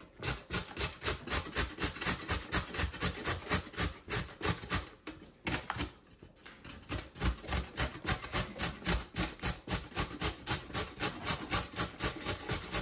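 Carrot being grated on a hand grater: steady rasping strokes, about four a second, with a short pause a little over five seconds in.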